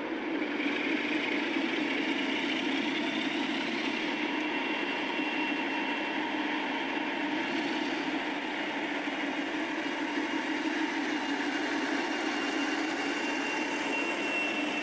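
Diesel locomotive engine running steadily, a constant drone with a faint high whine over it.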